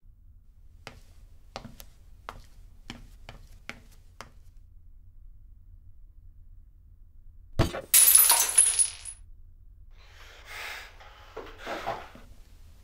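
A run of light clicks, about two a second, then a thud and a loud sharp crash of hard objects with a high ringing tail that fades after about a second, followed by fainter rustling.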